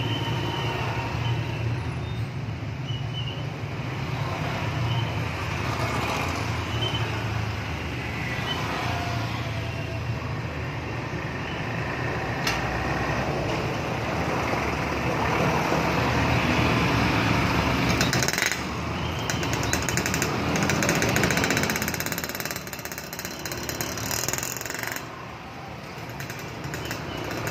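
Road traffic in a jam: vehicle engines running, with a steady low engine hum under changing road noise.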